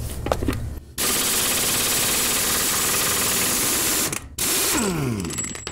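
Craftsman 1/2-inch air impact wrench hammering on a rusted, stuck Honda axle nut: a loud run of about three seconds, a brief stop, a short second burst, then the tool's whine falling as it spins down. The burst breaks the nut loose.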